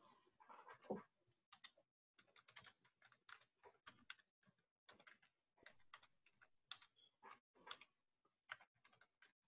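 Faint computer keyboard typing: short irregular taps, several a second, cut to silence between strokes as over a video-call connection.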